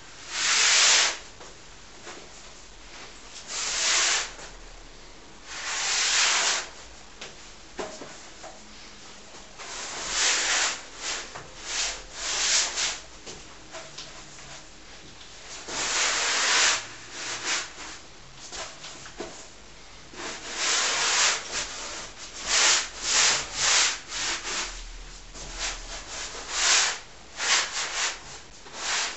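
Paintbrush scrubbing acrylic paint across a large canvas: irregular scratchy strokes, a few long separate ones at first, then shorter, quicker strokes in clusters toward the end.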